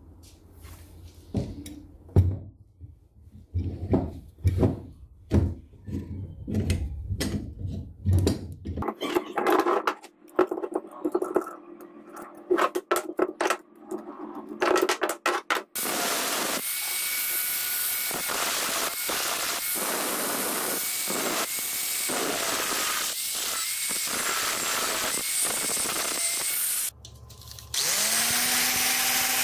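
Irregular clicks and knocks of metal clamps being loosened and taken off a glued wooden knife handle. About halfway through, a power tool starts and runs steadily for about eleven seconds with a brief stop. Near the end an angle grinder with a sanding disc starts up.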